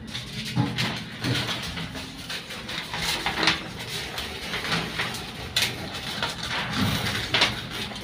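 Nippon elevator car travelling down between floors: a low steady hum with irregular knocks and short high squeaks through it, the loudest about three and a half and seven and a half seconds in.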